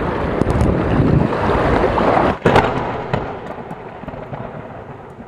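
Wind buffeting the microphone on an open shore for about two seconds; then, after a brief cut, a sudden boom that rumbles and slowly fades away, an intro sound effect under the channel logo.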